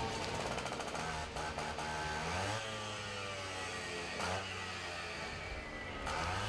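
Small two-stroke engine of a firefighter's gas-powered rescue saw revving up and dropping back to idle a few times.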